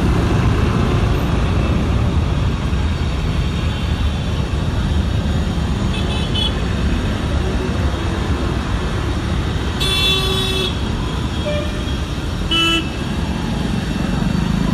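Busy street traffic with a steady rumble of engines and car horns honking. There is a faint short toot about six seconds in, a longer honk about ten seconds in, and another short honk a couple of seconds later.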